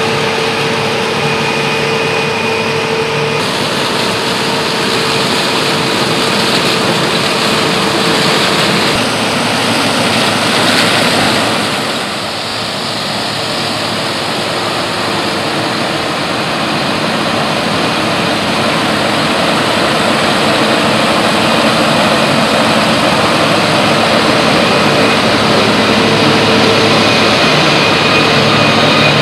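Claas Lexion 480 combine harvester running steadily while cutting sunflowers with its sunflower header: a continuous drone of engine and threshing machinery with a steady whine.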